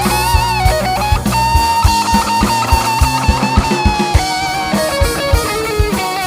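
Live band playing an instrumental passage: a lead guitar line holds one long note, with small bends, over a steady drum beat and bass.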